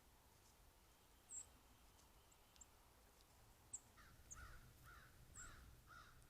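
Faint backyard birds: thin, high chip notes from small birds now and then, and in the last two seconds a run of five harsh calls about half a second apart.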